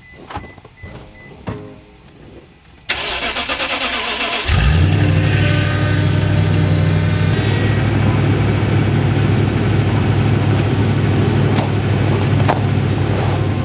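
An engine being started: a few seconds of cranking, then it catches and runs steadily at a low, even note.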